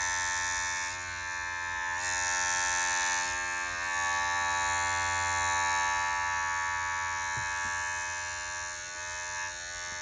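Wahl Magic Clip cordless hair clipper running on its new 7200 RPM replacement motor: a steady buzzing hum that grows louder for about a second, a couple of seconds in. It cuts off suddenly right at the end.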